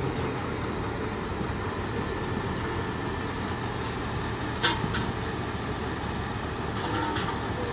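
Heavy machinery's diesel engine running steadily, with one brief sharp sound about four and a half seconds in.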